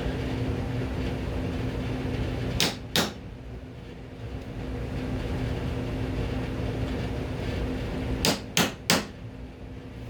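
Hammer striking a nail punch to countersink nails in wood: two sharp blows about three seconds in, then three quick blows near the end.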